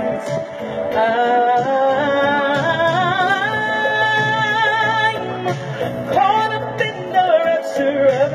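A singer performing live over backing music, amplified through outdoor PA speakers, with a wavering vibrato and one long held note about midway.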